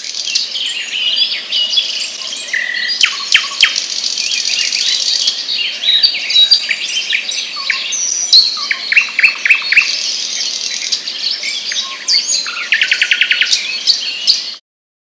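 Several birds chirping and singing at once, a dense mix of short calls and trills with a fast run of repeated notes near the end, cutting off suddenly.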